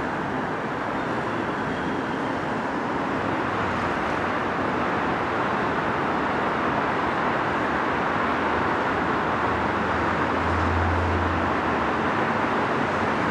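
Tyne and Wear Metrocar (Class 994 electric train) approaching on the track, a steady rushing rumble that grows gradually louder as it nears, with a brief low hum about eleven seconds in.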